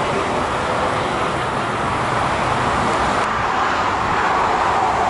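Steady jet engine noise from a taxiing Airbus A380 on its Rolls-Royce Trent 900 engines at low taxi thrust: a constant hum with a hiss on top. The hiss drops away a little about three seconds in.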